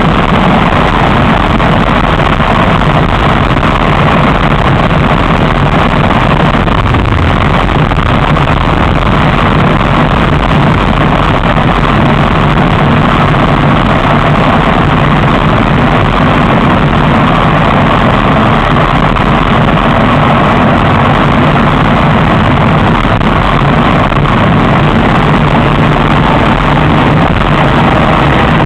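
Steady loud rush of wind and road noise on a bike-mounted camera while riding an e-bike along a road, with a faint steady hum underneath. It holds unchanged throughout.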